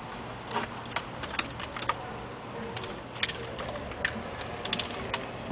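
Irregular light clicks and knocks, about ten in all, as weight plates on a hanging rope are handled and set against the wooden deck, over a steady low hum.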